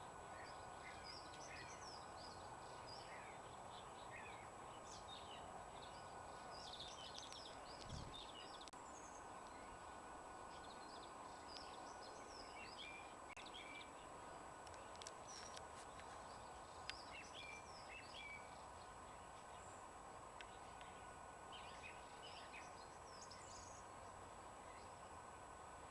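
Small songbirds chirping and calling on and off, several short calls at a time, over a steady faint background hiss of outdoor ambience. A single low bump about eight seconds in.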